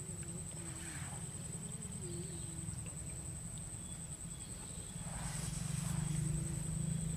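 Outdoor ambience at a lily-pad pond: a steady, high-pitched insect drone over a low rumble that grows louder about five seconds in.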